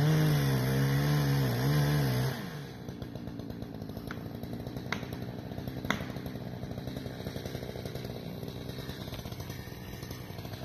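Two-stroke chainsaw cutting into a white pine trunk, its engine note wavering under load for about two seconds, then dropping suddenly to a quieter, rapid, even idle. Three sharp clicks or knocks, about a second apart, come partway through the idle.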